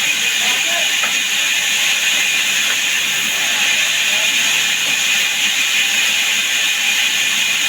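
Woodworking saw machine running steadily, a constant high-pitched hiss and whine that holds at one level throughout.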